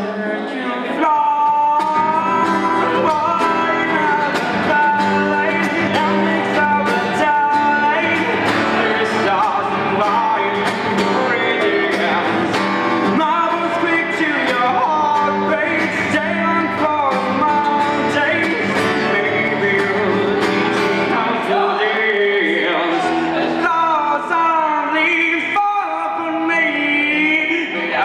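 A man singing a song while strumming an acoustic guitar, live and unaccompanied, the strums coming in a quick steady rhythm under the voice.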